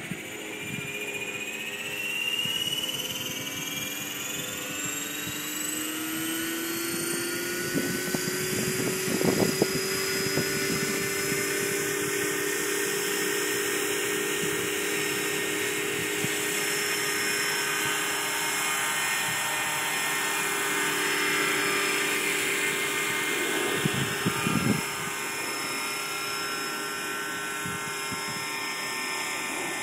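Electric 500-size RC helicopter on a 6S 22.2 V LiPo spooling up: the motor and gearbox whine climbs in pitch over the first ten seconds or so, then holds steady as the rotor reaches head speed. It ends lifting into a low hover. Two brief rumbling bursts come through about nine seconds in and again near twenty-four seconds.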